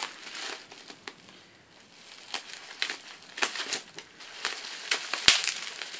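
Bubble wrap around a gift crinkling and crackling as it is slowly unwrapped, with scattered sharp crackles and one louder snap about five seconds in.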